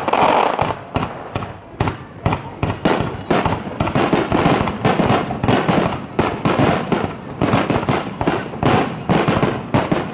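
A fireworks barrage: a dense, unbroken run of launches and bursts, several sharp bangs a second, with crackling between them.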